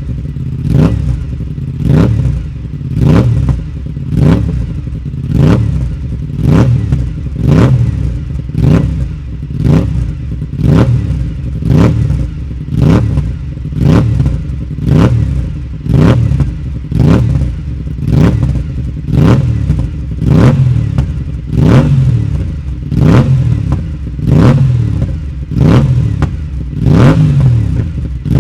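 Aprilia RS 457's 457 cc parallel-twin engine revved in short throttle blips about once a second, each rising and falling quickly in pitch, over a running idle.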